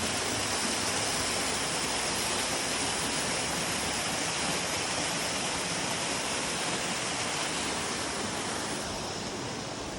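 Rushing water from the waterfall and its stream, a steady even hiss that eases slightly near the end.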